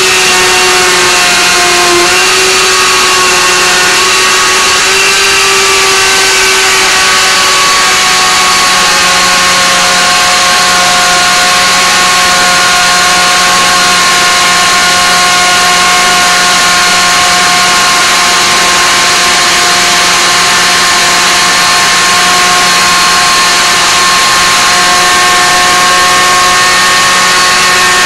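Waring Margarita Madness blender motor running steadily, churning a jar of frozen fruit. Its whine rises slightly in pitch over the first several seconds, then holds steady.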